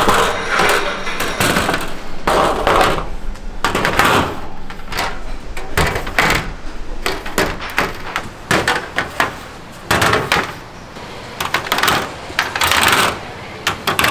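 Busy, irregular run of sharp knocks, clacks and crunches from food being prepared at a fried-chicken stall, several a second, with brief lulls about ten and thirteen seconds in.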